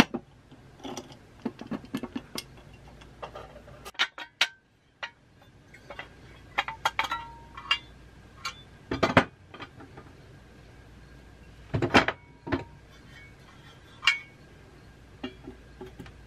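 Irregular metallic clinks, knocks and taps from the metal parts and housing of a 1960s Duncan Duplex parking meter being handled and fitted together, a few of the louder knocks ringing briefly. There is a short gap about four seconds in.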